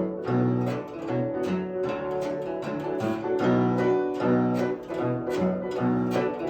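Solo guzheng (Chinese zither) playing fast, sharply plucked notes over a repeating low bass figure.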